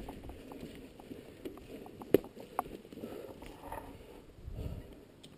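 Mountain bike rolling over rocky singletrack: scattered clicks and knocks from the tyres striking stones and the bike rattling, with one sharp knock about two seconds in.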